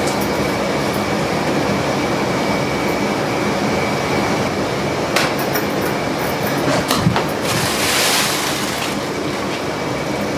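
Steady, loud mechanical rumble with a faint steady whine over it, a few sharp knocks around the middle, and a short hiss about eight seconds in.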